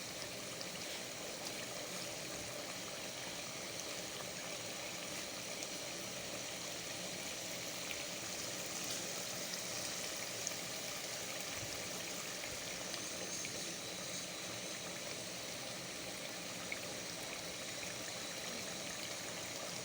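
Tomato stew cooking in groundnut oil in a pot, giving a steady bubbling sizzle.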